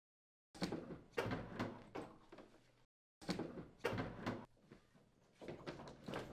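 Through-wall heat pump unit being slid into its wall sleeve: a run of knocks and scrapes in three bursts, with short pauses between.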